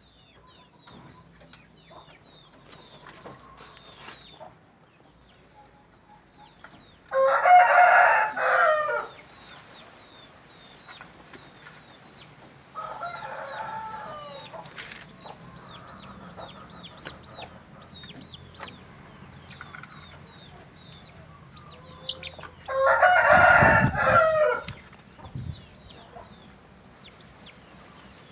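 Rooster crowing, two loud crows about two seconds each, roughly fifteen seconds apart, with a fainter crow between them. Short high chirps go on throughout.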